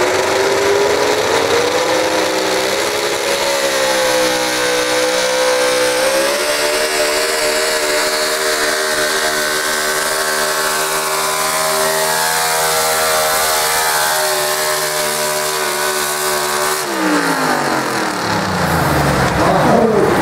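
Pulling truck's engine at full throttle under load as it drags the weight sled. The revs climb in the first seconds, step up again, and hold high and steady for most of the pull. Near the end the revs fall away as the truck stops.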